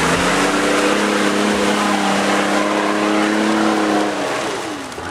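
Off-road 4x4's engine revving hard, held at high revs and climbing slightly for about four seconds, then falling away as the throttle comes off near the end.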